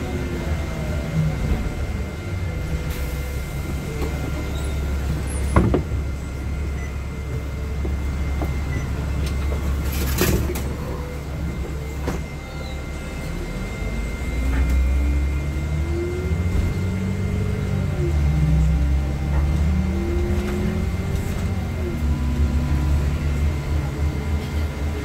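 NovaBus LFS city bus heard from the front seat, its engine and drivetrain running as it slows to a stop, then pulling away with a rising whine that drops and climbs again as it shifts up through the gears. Two sharp knocks, about five and ten seconds in.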